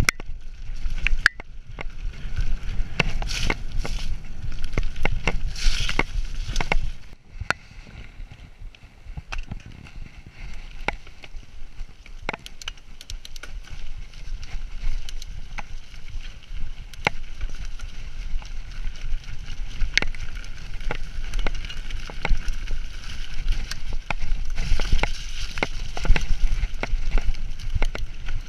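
Mountain bike ridden over a muddy, rough dirt trail: tyres rolling through mud with a low rumble, and the bike rattling with many sharp clicks and knocks over the bumps. It goes quieter suddenly about seven seconds in and gets busier again near the end.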